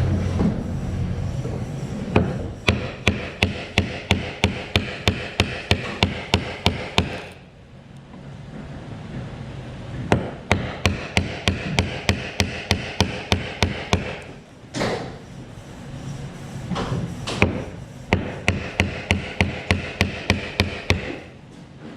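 Rapid, evenly paced hammering on wood, about three blows a second, in three runs with short pauses between them.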